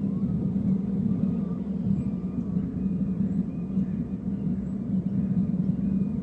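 Steady low drone of a distant engine, holding an even level throughout.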